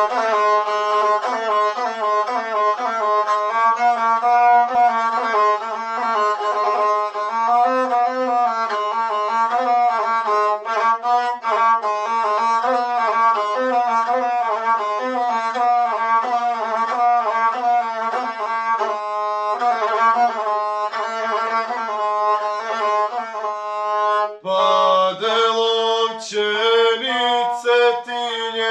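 A gusle, the single-string bowed folk fiddle with a skin-covered body, plays the ornamented instrumental introduction to an epic song. About 24 seconds in, a young man's voice begins singing in the guslar epic style over the gusle.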